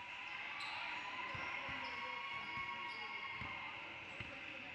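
Basketball bouncing on a court floor, a series of irregularly spaced thumps.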